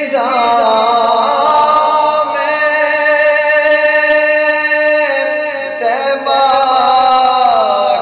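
A man reciting an Urdu naat, singing long held notes that glide up and down in pitch, with a short breath between phrases around five to six seconds in.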